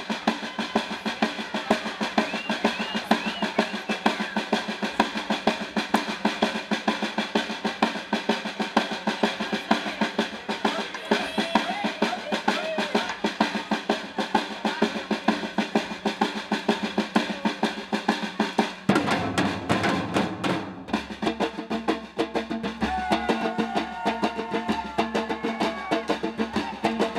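Percussion ensemble of large barrel drums, congas and stick-played drums playing the Afro rhythm, with dense, steady strokes. About nineteen seconds in the pattern changes and deeper bass-drum hits come in.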